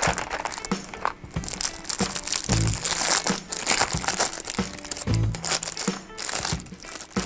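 Clear plastic film wrapping crinkling and crackling as it is peeled off a small plastic parts box, over background music with deep bass hits a couple of seconds apart.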